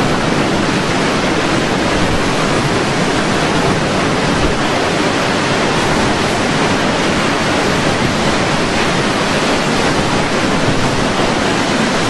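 Steady, loud rushing noise of wind and water, even throughout with no gusts or breaks.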